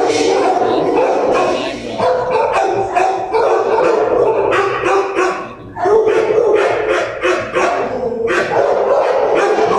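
Dogs barking and yelping in a shelter kennel block, many calls overlapping without a break except for a short lull a little past halfway.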